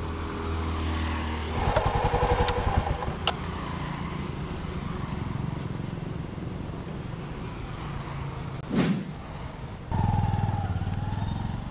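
Small commuter motorcycle engine running at idle with a brief rev about two seconds in, and rising again about ten seconds in as it pulls away. A short whoosh comes shortly before that.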